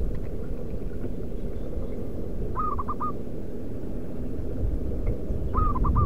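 Zebra dove calling: two short phrases of quick staccato coos, about three seconds apart, over a steady low rumble.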